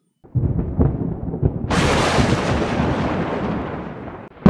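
Thunder: a low rumble, then a sharp crack about a second and a half in that rolls away slowly over the next couple of seconds.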